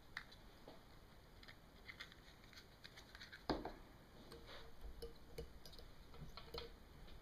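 Faint, scattered clicks and light taps from fly-tying materials and tools being handled at the vise, with one louder knock about three and a half seconds in.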